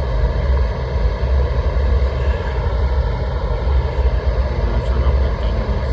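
Propane roofing torch burning with a steady, loud roar.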